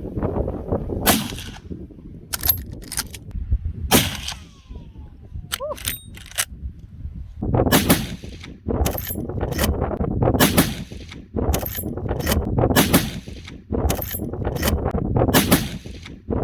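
Lever-action rifles firing repeatedly, a shot every couple of seconds, with sharp metallic clacks between shots as the levers are cycled.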